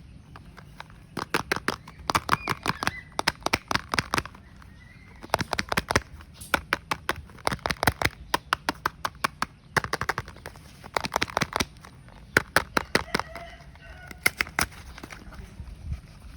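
Soap packaging being unwrapped by hand: repeated bursts of crisp crackling clicks, each about a second long, with short pauses between. Chickens call faintly in the background.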